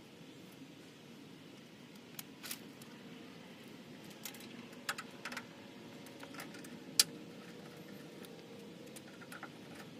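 Scattered hard plastic clicks and taps as a plastic bug shield is handled and pressed against the front edge of a truck's hood, with a sharper single click about seven seconds in.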